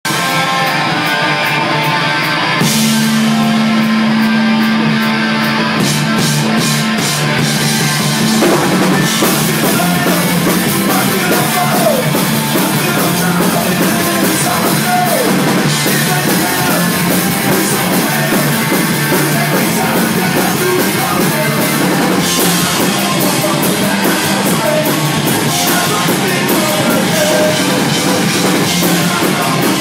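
Live Oi! punk band playing loud: distorted electric guitar, bass and drums, with the drums and cymbals coming in about three seconds in, and shouted vocals over the top.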